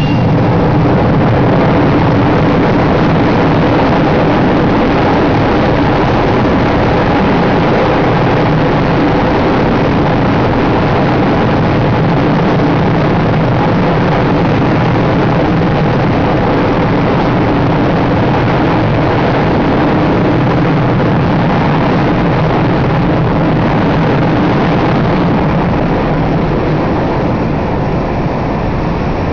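Fighter jet engines running at high power on a carrier flight deck: a loud, steady jet noise with a deep rumble and several held tones. The upper part of the noise fades near the end as the jet is catapulted off the bow.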